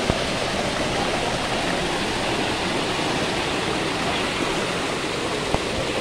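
Stream water rushing and splashing down rock chutes in a small waterfall: a steady rushing noise, with a brief click just after the start and another about five and a half seconds in.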